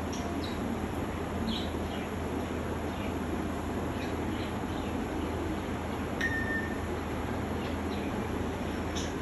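African grey parrot making short high chirps and clicks, with one brief steady whistle about six seconds in, over a steady background hiss and hum.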